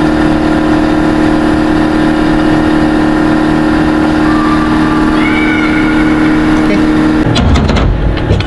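Loud, steady machine drone holding one constant low tone. About seven seconds in it gives way to knocking and rustling handling noise.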